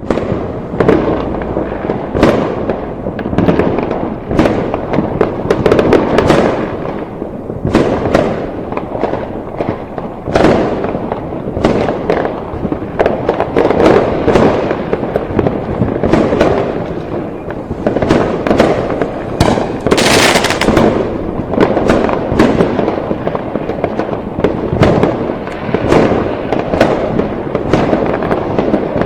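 A fireworks display: continuous overlapping bangs and crackles, many shots a second with rumbling echoes, and a sharp crackling burst about two-thirds of the way through.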